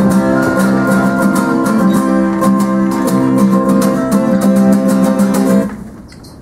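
Acoustic guitars strumming a steady chord rhythm, stopping about a second before the end.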